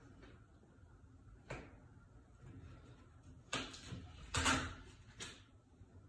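A lace stencil being peeled and lifted off a freshly spray-painted panel: about five short rustling scrapes, the loudest and longest about four and a half seconds in.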